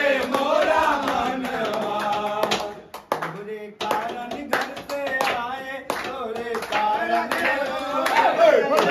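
A group of men singing a Holi folk song together, with hand clapping and a steel plate tapped as percussion. The singing breaks briefly about three seconds in, then resumes.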